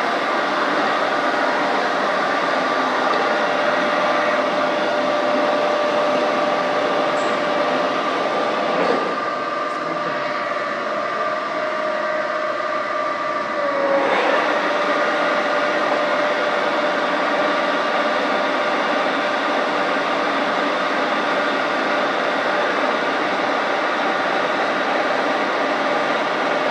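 SAJO MC 500 horizontal machining center running: a steady mechanical whine with a couple of clear tones. About nine seconds in it drops and quietens, then comes back with a short pitch glide some five seconds later.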